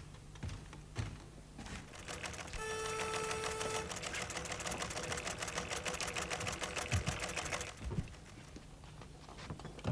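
Teleprinter printing: a rapid, even clatter of keystrikes lasting about five seconds, with a steady tone sounding as it starts. Two dull thumps follow near the end.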